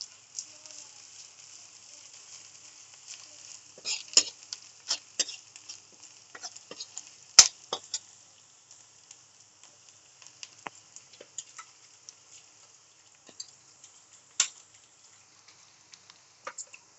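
Onion, garlic and freshly added grated ginger frying in oil in a kadai: a soft sizzle that thins out after several seconds. Over it, a metal spatula scrapes the pan and clicks against it as the mixture is stirred.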